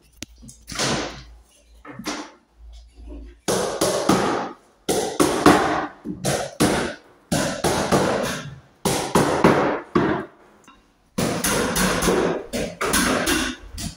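Hammer blows in quick runs of several strikes, with short pauses between runs: carpet gripper strips being nailed down along the edge of a floor.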